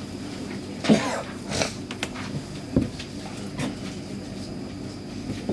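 Steady hum inside a Stockholm Metro C6 car standing in a tunnel, with a few irregular knocks and clicks over it, the loudest about a second in.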